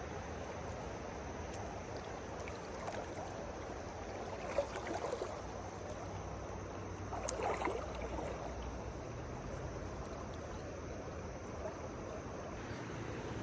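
River water flowing steadily, with two brief louder noises about four and a half and seven and a half seconds in.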